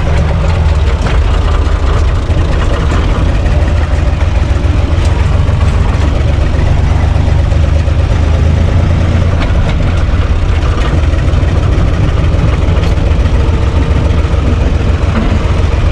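UTB 445 tractor's four-cylinder diesel engine running steadily as the tractor drives, heard loud from inside its cab.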